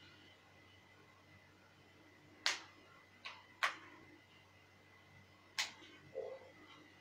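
Four sharp clicks and taps, unevenly spaced across a few seconds, from small objects handled on a table, followed near the end by a soft muffled thump. A faint steady high-pitched hum runs underneath.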